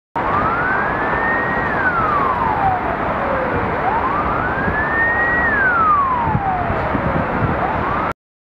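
Emergency vehicle siren wailing, its pitch slowly rising and then falling, about two full cycles, over steady background noise. It starts and stops abruptly.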